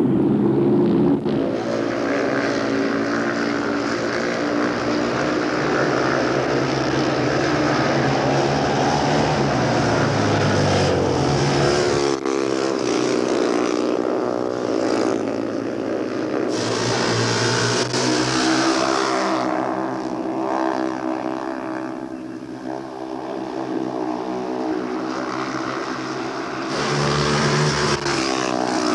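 Speedway motorcycle engines running hard and revving, their pitch rising and falling, with the sound changing abruptly a few times.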